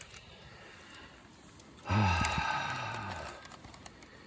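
A man's long sigh, starting about two seconds in, low-pitched and falling, fading away over about a second and a half.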